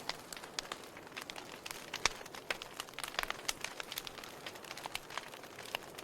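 Wood fire burning in a fireplace: a soft steady hiss with irregular sharp crackles and pops from the logs, the loudest pop about two seconds in.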